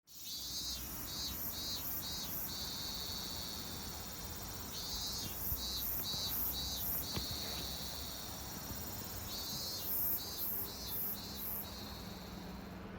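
Insect chirping in a repeating pattern, heard three times: a run of about five short, high-pitched pulses followed by a longer steady trill.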